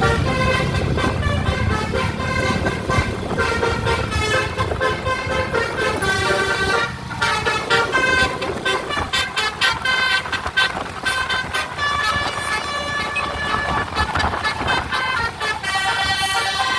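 Bus telolet horn, a multi-tone musical horn, playing a fast run of short notes at changing pitches like a tune, over a low engine rumble that weakens after about five seconds.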